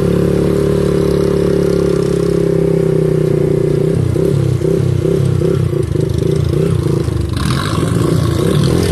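Small motorcycle engine running steadily, then turning uneven and pulsing about two to three times a second from about halfway in, with a hiss rising near the end.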